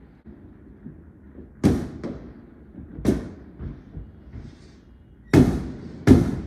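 Aerial firework shells bursting: four loud bangs with smaller pops between them, each bang trailing off as it fades.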